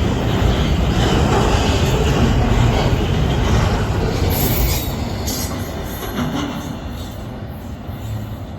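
Norfolk Southern intermodal freight train's well cars rolling past, wheels rumbling and clattering on the rails, with a brief high wheel squeal about halfway through. The noise fades over the last few seconds.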